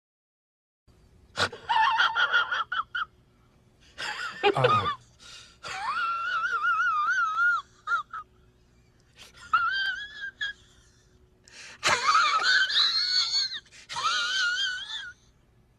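A run of short sound-effect clips of high-pitched, wavering wailing cries, about six of them one after another with short gaps between.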